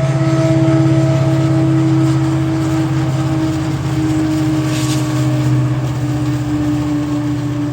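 WDP4D diesel-electric locomotive's 16-cylinder two-stroke EMD engine humming steadily: a low drone with steady higher tones over it. One tone eases slightly lower about six seconds in, and there is a brief hiss a little before that.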